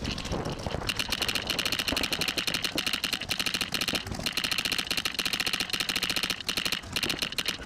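Paintball markers firing in fast, near-continuous ramping streams, the shots running together at many a second, with short breaks about four seconds and six and a half seconds in.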